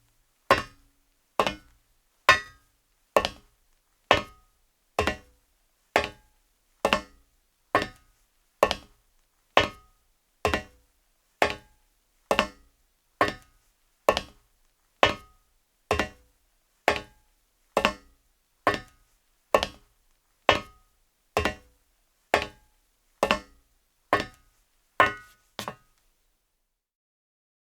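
Footsteps of a man in leather-soled shoes walking on a metal surface: single sharp steps at a slow, even pace of about one a second, each with a brief ring. The steps stop about two seconds before the end.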